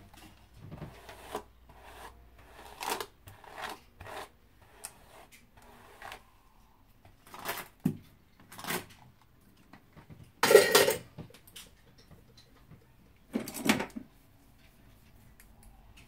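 Hair being worked with a bristle brush: a string of short, irregular brushing and rustling strokes, with the clatter of styling tools being handled. The loudest clatter comes about ten and a half seconds in, with another about thirteen and a half seconds in.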